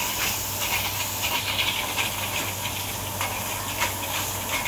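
Noodles sizzling in a hot wok over a steady hiss, with a metal spatula repeatedly scraping and clicking against the wok as the char koay teow is stir-fried.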